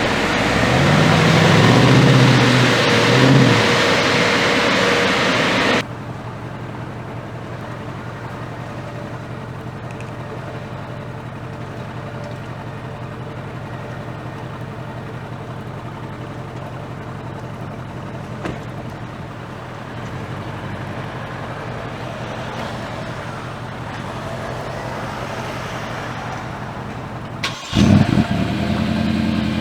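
Bentley Continental GT V8 S's twin-turbo V8 with sports exhaust: revving, pitch rising and falling, for the first six seconds or so, then idling steadily for most of the time, and revving up loudly again near the end.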